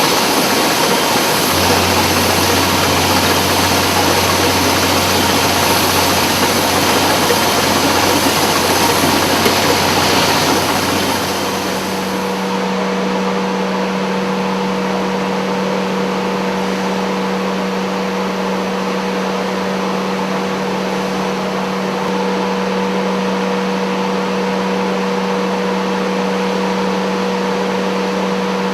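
Industrial vacuum dust-extraction system running steadily with a loud rushing hiss and a low hum. About twelve seconds in the sound changes: the hiss grows duller and slightly quieter and a higher, steady hum takes over.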